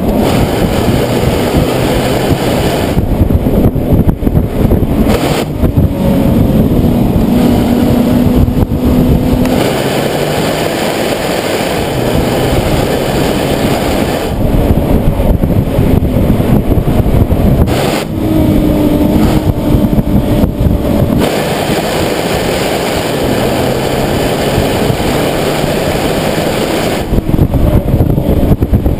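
Nissan 370Z's 3.7-litre V6 driving under load, its note climbing twice as it pulls up through the revs, over steady road and wind noise.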